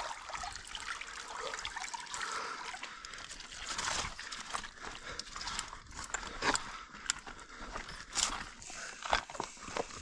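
Water trickling steadily, with scattered sharp clicks and knocks over it.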